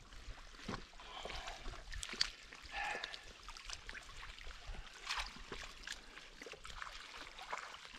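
Shallow water trickling and splashing lightly in small irregular bursts as a landing net holding a Murray cod is moved about in the shallows.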